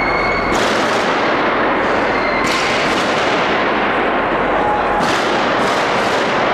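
Gunshots echoing through a huge station hall: single sharp reports about half a second and two and a half seconds in, then two in quick succession near the end, each trailing off in a long reverberation over a steady background din.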